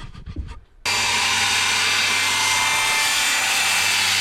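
Electric power saw cutting through wood, starting abruptly about a second in and running steadily.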